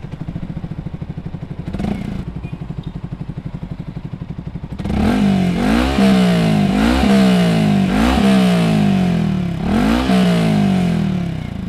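Motorcycle idling through a Ronin Black Katana three-sound aftermarket exhaust set to silent mode, its silencer freshly repacked with new glass wool. About five seconds in, the throttle is blipped several times, the revs rising and falling each time before it settles back to idle.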